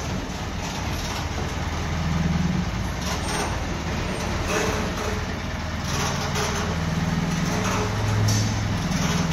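Diesel engine of a mobile crane running under load while it carries a slung machine, its pitch rising and falling a few times as the driver works the throttle.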